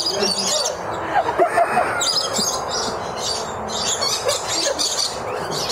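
A flock of aviary birds chirping and screeching, bursts of shrill calls coming one after another every half second or so over a steady background chatter.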